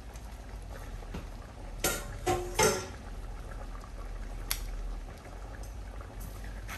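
Pot of rice and red kidney beans simmering on the stove, with a few sharp metal clinks and short ringing knocks of a utensil against the pot, the loudest about two to three seconds in and one more click a little later.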